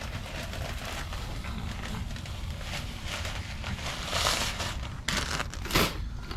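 Metal parts scraping, clicking and clattering as the turbocharger and its coolant lines are worked loose by hand, with two louder scrapes about four and six seconds in.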